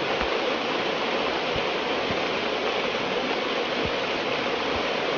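Steady, even rushing hiss like running water, with a few soft low bumps.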